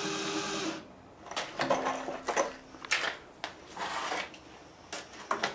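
Cordless drill driving screws into wooden blocks in short runs, one in the first second and another from about a second and a half to three seconds in. Knocks and clatter of handling the wood and tools fall in between.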